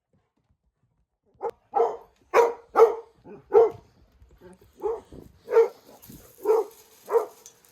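A dog barking repeatedly: about nine short, sharp barks starting a second and a half in, with uneven gaps between them.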